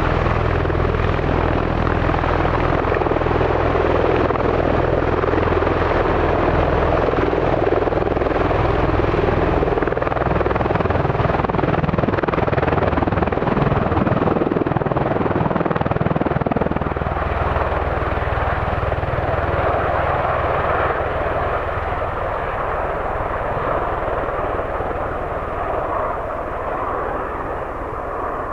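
V-22 Osprey tiltrotor running, with its twin Rolls-Royce T406 turboshafts and prop-rotors making a loud, deep, steady throb. The sound slowly fades over the second half.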